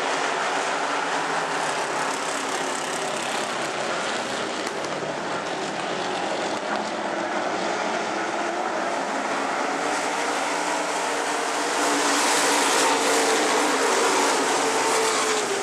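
A pack of dirt-track pure stock cars racing, their engines running together in one continuous roar. It gets louder about twelve seconds in as the pack comes closer.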